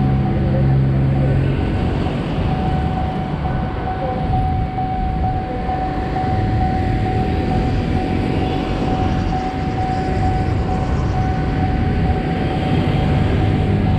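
Road traffic rumbling with vehicle engines running, under a steady high-pitched tone.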